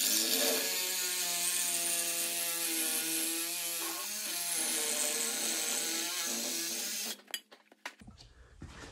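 Handheld power tool, an angle grinder, cutting steel: a steady, loud grinding whine and hiss whose pitch sags slightly under load about four seconds in, then stops suddenly about seven seconds in, followed by a few light clicks and knocks.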